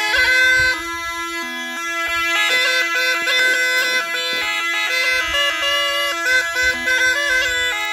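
Background music: a reed wind instrument playing a melody over an unbroken steady drone, in the manner of bagpipes.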